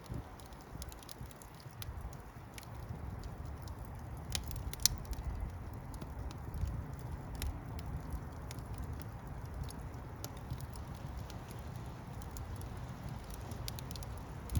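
Wood fire crackling: many small, irregular pops and snaps, one sharper pop about five seconds in, over a steady low rumble of the flames.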